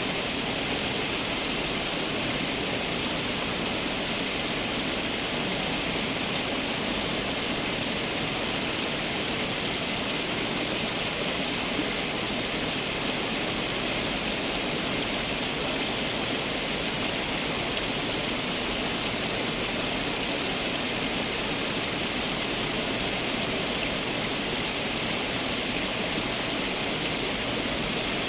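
Water from a garden fountain splashing and falling continuously: a steady, even rush with no change in strength.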